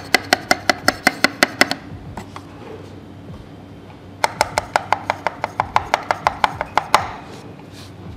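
Stabilised keys on a Keychron V1 mechanical keyboard being pressed over and over to demo its stock screw-in PCB stabilisers, pre-lubed from the factory, which the reviewer rates as very good. The presses come in two quick runs of even clacks, about five a second, with a pause between them and a heavier clack to finish the second run.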